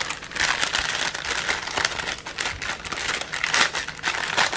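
Thin clear plastic bag crinkling and rustling continuously as hands fold it and push small packets back into it.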